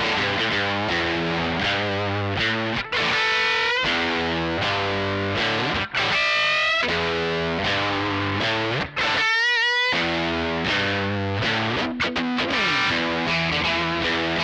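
Single-coil electric guitar played through a Joyo American Sound amp-simulator pedal with a Benson germanium fuzz, Cali76 compressor and UA Golden spring reverb, giving a fuzzy, distorted tone. It plays rhythmic chords broken three times by held lead notes bent with wide vibrato.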